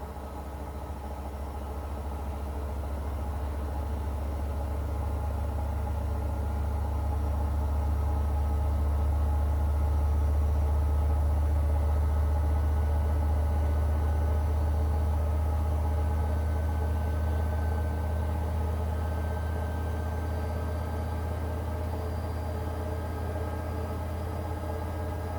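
Washing machine running with a steady low hum that swells over the first several seconds and then eases a little.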